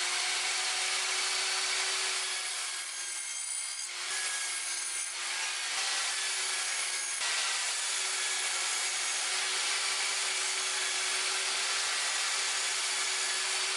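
Lotus LTST1800X table saw running and cutting wood: a steady hiss of blade through board over a constant motor whine. It changes abruptly a few times in the first half.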